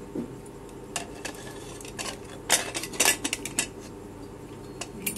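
Prestige pressure cooker lid being fitted and locked shut: a series of sharp metal clanks and clicks, most of them bunched together and loudest between about two and a half and three and a half seconds in.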